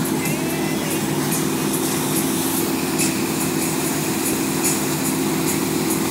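Towboat engine running steadily under way, a constant hum under the rushing hiss of the churning wake water.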